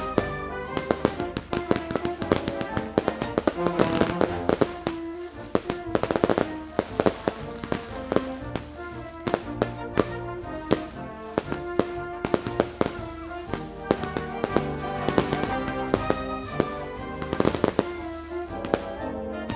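Fireworks going off over music: many sharp bangs and crackles, with the densest bursts about six seconds in and again near the end, while music with held notes plays on.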